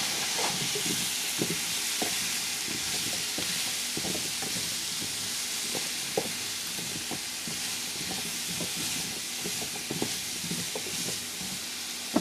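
Butternut squash cubes sizzling as they sauté in a nonstick frying pan, with a silicone spatula scraping and clicking against the pan as they are stirred. A sharper knock comes near the end.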